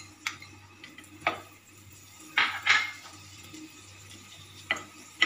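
A metal spoon knocking and scraping against a non-stick frying pan, about five short separate strokes, as lumps of butter are pushed around while they melt.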